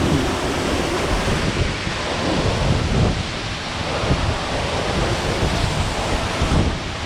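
A waterfall rushing steadily close by, with irregular low rumbling from wind buffeting the microphone.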